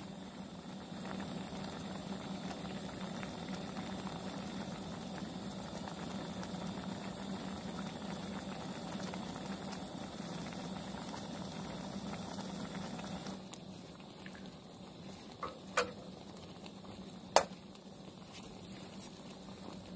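A pot of food bubbling at a boil on a camp stove, which stops about 13 seconds in. Two sharp clicks follow, about a second and a half apart.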